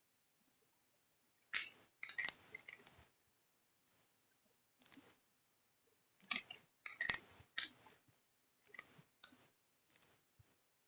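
Small plastic toy parts being handled and clicked together, in several short clusters of sharp clicks and taps.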